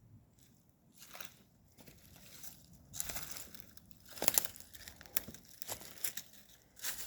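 Irregular rustling and crunching, sparse at first and busier from about a second in, loudest around three and four seconds in.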